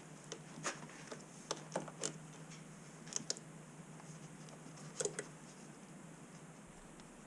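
Scattered light clicks and taps, irregular and a few in quick pairs, over a faint steady hum.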